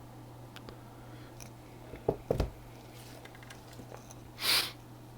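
Quiet room tone with a steady low hum, a few soft knocks about two seconds in, and a short hiss about four and a half seconds in.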